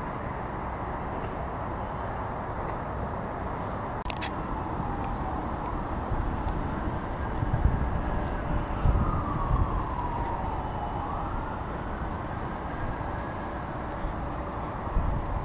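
Wind buffeting the microphone in gusts over a steady rush of outdoor noise, with a faint tone sliding down in pitch twice.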